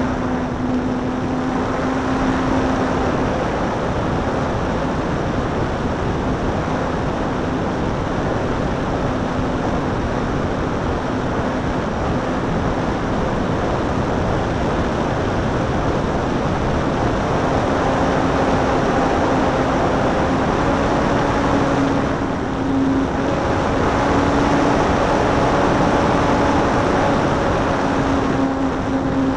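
Electric RC Parkzone P-51 in flight: wind rushing over the wing-tip camera's microphone, with the motor and propeller humming at a steady pitch underneath, clearer at the start and over the last third.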